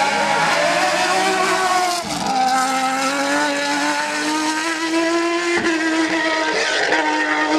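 Dallara Fiat single-seater racing car's engine running at high revs, with a short break in the note about two seconds in and another a little over five seconds in, the pitch rising slowly between them.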